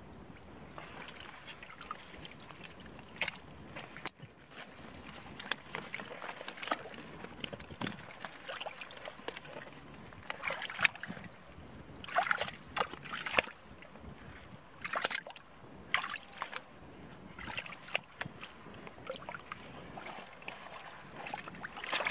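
Hands churning through soft wet mud and shallow muddy water, making irregular sloshing and splashing sounds that come in louder bursts from about halfway through.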